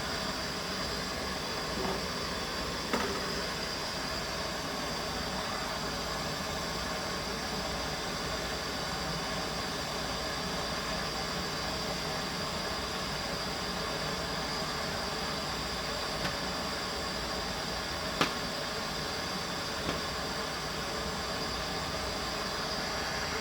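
Steady hiss and rumble of a covered curry pot heating on the stove, just short of the boil, with a couple of faint clicks.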